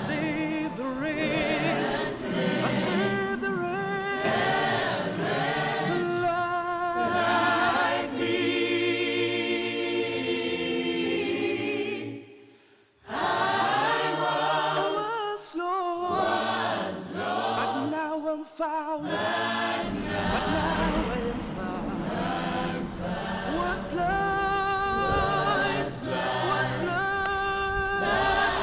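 Choir singing a hymn a cappella, in sustained wavering notes, with a brief break about twelve seconds in.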